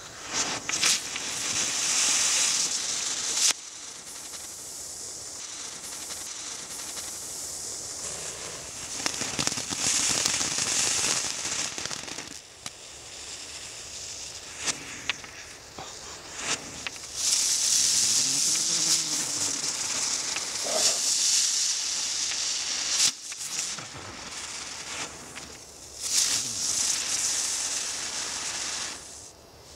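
Dancing Butterfly ground firework fountains spraying sparks: a crackling hiss in four spells of a few seconds each, with sharp pops and quieter gaps between.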